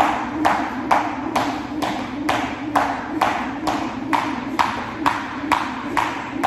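A 1 lb weighted jump rope slapping the floor in a steady rhythm, a little over two strikes a second.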